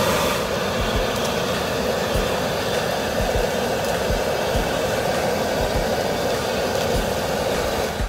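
Steady hiss of shrimp roasting on a bed of hot coarse salt on a camping griddle, stopping abruptly near the end.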